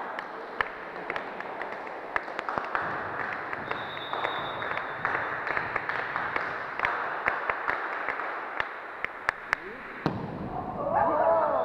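Volleyball play in a sports hall: a hubbub of players' and spectators' voices with many sharp slaps and knocks of the ball and hands, and one loud shout near the end.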